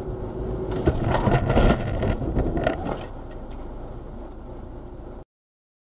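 Car crash heard from inside the crashing car through its dashcam: about a second in comes a rapid series of loud impacts and crunching metal lasting about two seconds, over road and engine noise. The noise then settles lower and cuts off suddenly near the end.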